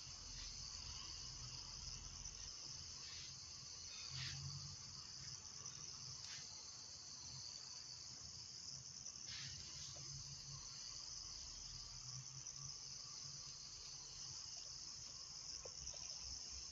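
A steady high-pitched insect chorus, crickets trilling without a break, with a few faint clicks over it.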